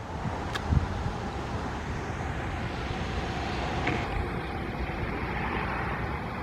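Steady outdoor noise of rain and traffic on wet roads, with a low rumble and a couple of sharp ticks. No siren tone stands out.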